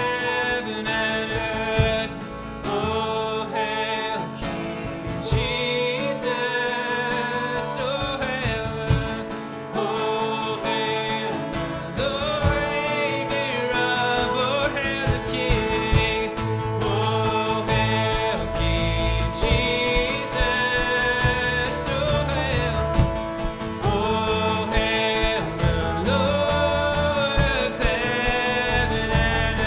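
Live church worship band playing a slow worship song, with guitar and a sung melody; the bass fills out about halfway through.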